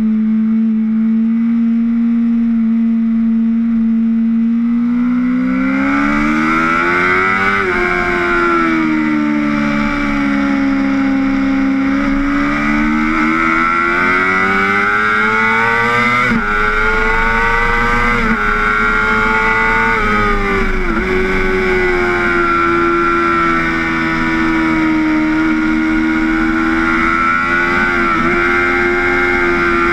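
Sport motorcycle engine heard from an onboard camera: held at steady revs for the first few seconds, then its pitch climbs and falls with several sudden drops as the rider works through the gears. Wind rush on the microphone comes in as the speed builds.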